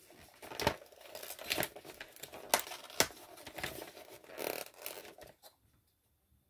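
Crinkling and tearing of a chocolate advent calendar's packaging as it is opened by hand, with irregular sharp crackles that stop about five and a half seconds in.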